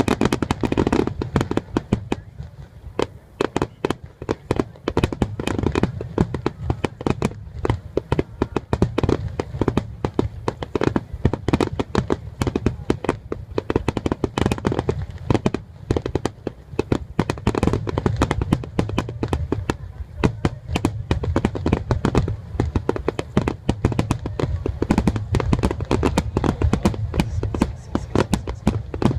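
Aerial fireworks display: a dense, continuous crackle of many small bursts over a steady low rumble of booms.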